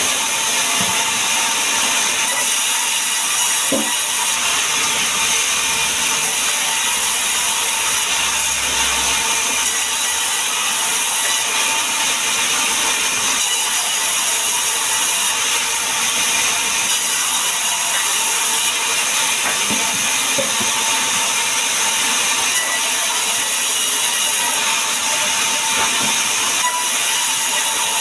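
Sawmill band saw running and cutting through a log, a steady high hiss with a thin steady whine under it and an occasional faint knock.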